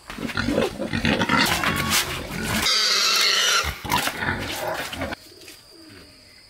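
A fattened pig squealing loudly in distress while trussed in a wire-and-bamboo carrying cage and handled. The squealing stops about five seconds in.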